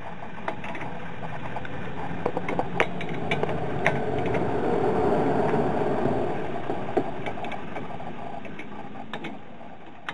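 Ratchet wrench clicking in short bursts as it tightens the front brake caliper bolts of a 2013 Nissan Versa, over a rushing background noise that swells about halfway through and fades.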